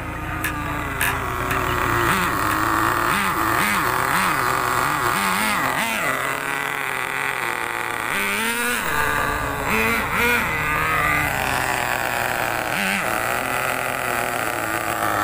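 Nitro RC monster truck's small glow-fuel two-stroke engine revving hard as it is driven, its high whine rising and falling in pitch again and again with the throttle.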